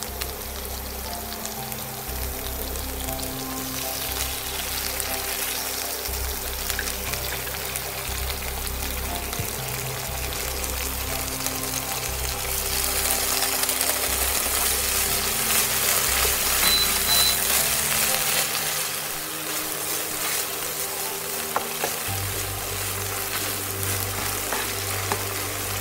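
Sliced shallots and butter sizzling in a frying pan while sour cream is stirred in. The sizzle grows stronger about halfway through. Light background music plays underneath.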